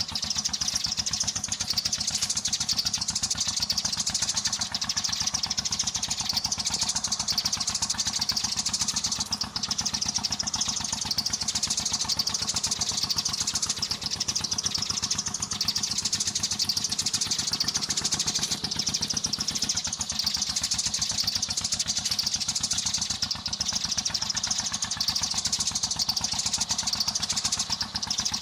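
Dense, continuous chirping of many sparrows, a steady high chatter that holds without a break; sparrow calls like these are used to lure flocks to glue traps. A faint steady low hum lies beneath.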